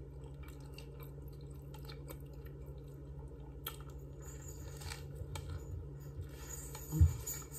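Close-up chewing and biting into a soft steamed chicken breast sandwich with lettuce on a Hawaiian roll, with faint small wet mouth clicks. A single low thump near the end.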